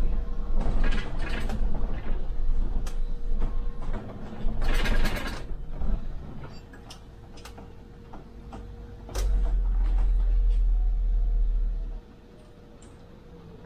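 Hybrid MAN Lion's City city bus running, with low rumble and scattered rattles and clicks, and two short hisses. A heavier low rumble sets in about nine seconds in and stops suddenly about three seconds later.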